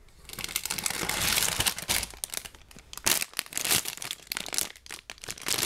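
Plastic LEGO parts bags crinkling as they are handled: a continuous rustle for the first two seconds or so, then shorter, irregular crinkles.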